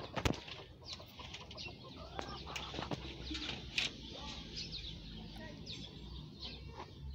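Backyard chickens calling: short clucks and high chirping calls scattered irregularly, with a sharp click about a third of a second in.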